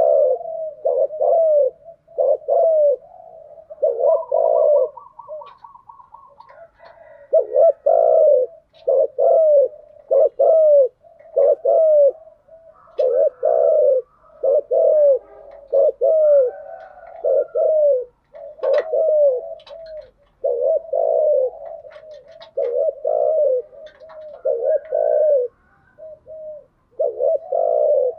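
Spotted doves cooing: loud, repeated coos in short runs with brief pauses, with a faint rapid trill about four seconds in.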